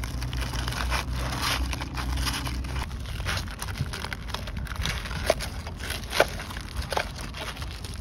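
Plastic spoons scraping and pressing through a sugar-coated corndog in a cardboard takeout box: crackling and rustling with a few sharper clicks after the middle.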